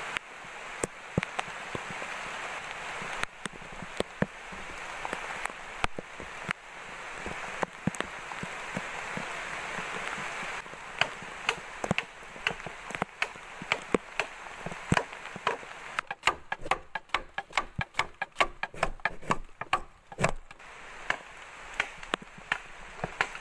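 Steady rain hiss with scattered knocks, then from about eleven seconds in a long run of sharp chopping strokes on bamboo, coming fastest, about four or five a second, in the middle of the run.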